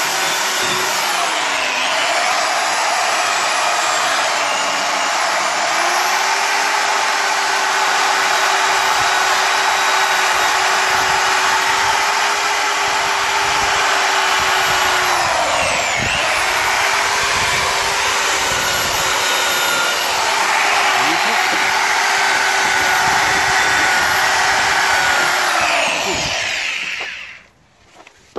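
Electric drill spinning a brass wire wheel brush against hot cast iron, rubbing a thin layer of brass onto the casting (hot brassing). The motor runs steadily, dipping in pitch a few times as the brush is pressed harder, and stops near the end.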